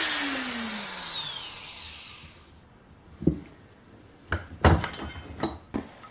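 Electric die grinder with a small cut-off disc spinning down after a cut, its whine falling in pitch and fading away over about two seconds. Then a handful of sharp knocks and clatters follow in the second half.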